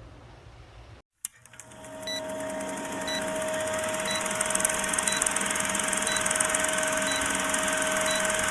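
A steady mechanical whirring with a few held tones and a short beep about once a second, starting suddenly about a second in after a brief silence and a click.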